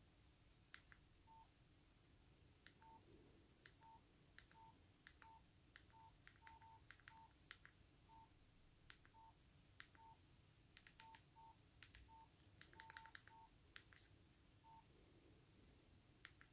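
Nokia 5300 XpressMusic key tones as its navigation key is pressed through the menus. Each soft key click is followed by a short single-pitch beep, about twenty of them at uneven intervals, all faint.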